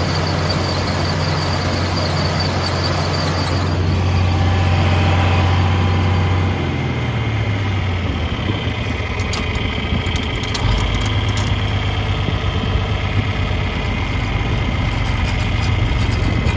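Vintage John Deere tractor engine running steadily. About seven seconds in its note drops and settles lower, with a few light clicks or rattles after the change.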